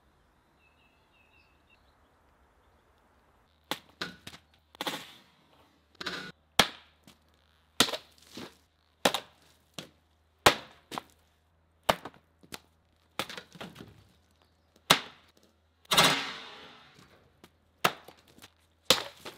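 A segmented steel whip sword swung hard again and again, giving sharp cracks and chops as it hits its targets on a table, a plastic water bottle and fruit, about one strike a second. The strikes start a few seconds in, after a quiet spell, and a couple of heavier ones near the end ring on longer.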